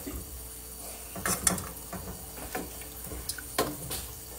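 A ladle stirring in a cooking pot on the stove, knocking and scraping against the pot: several sharp, irregularly spaced clinks over a low steady hum.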